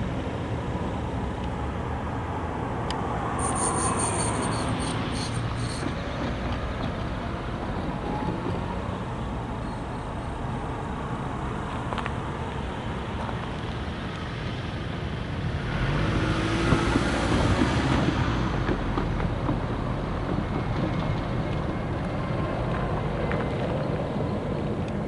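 Steady low engine rumble with road-traffic noise. A brief high squeal comes about four seconds in, and a louder vehicle sound swells and passes about sixteen to eighteen seconds in.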